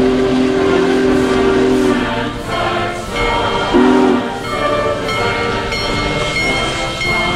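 Union Pacific Big Boy 4014 steam locomotive's chime whistle blowing a long blast that cuts off about two seconds in, then a short toot about four seconds in, with choral music playing throughout.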